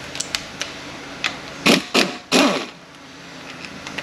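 Hand tools working metal parts of an automatic transmission: a few light clicks, then three louder creaking, scraping strokes about two seconds in.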